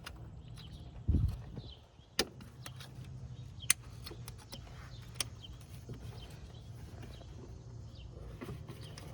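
Hand work on a BMW N20 engine's ignition coils: a low thump about a second in, then several sharp plastic clicks as the coil connectors are unclipped and the coils pulled out, over a steady low hum.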